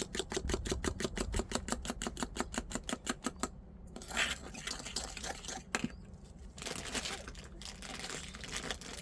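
Rapid, even tapping, about six to seven strokes a second, which stops about three and a half seconds in. Then come several short bursts of rustling or scraping.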